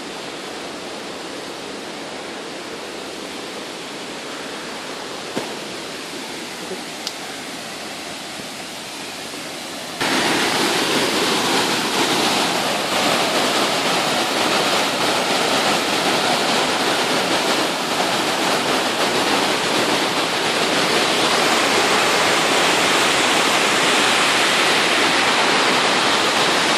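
Waterfall rushing in a steady roar of falling water, which jumps much louder about ten seconds in and holds there.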